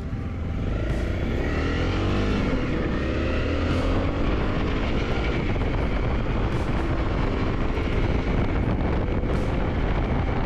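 Motorcycle engine running under a steady low rumble, its pitch rising and falling between about two and six seconds in.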